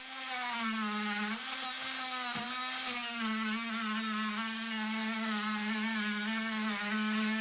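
Oscillating multi-tool (MultiMaster) running steadily at a high hum as it shaves down material with a dull blade. Its pitch dips briefly about a second and a half and two and a half seconds in.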